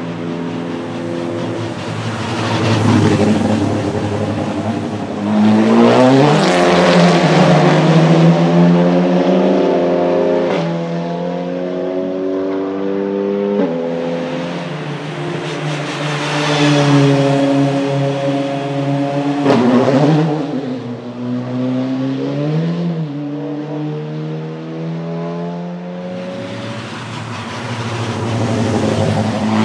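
Cupra Leon Competición TCR race cars' 2.0-litre turbocharged four-cylinder engines accelerating past on track. Revs climb and then drop abruptly at upshifts of the sequential gearbox, and the sound rises and falls as several cars go by.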